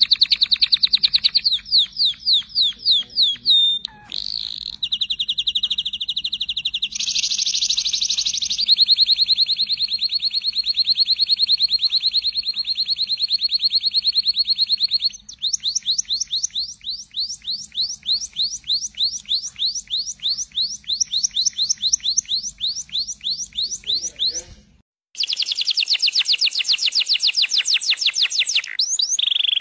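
Male domestic canaries singing long songs of rapid trills and rolls: fast runs of repeated notes alternate with steady held rolls. The song breaks off briefly about 25 seconds in, and another canary's song starts.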